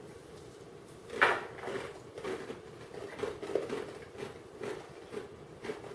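Several people chewing small snack pieces at close range, a run of soft, uneven chewing noises about two to three a second, with one louder short sound about a second in.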